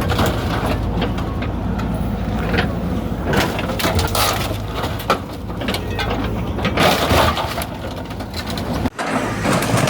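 An engine running steadily under repeated crashing and clattering impacts, like hard objects being smashed or thrown about.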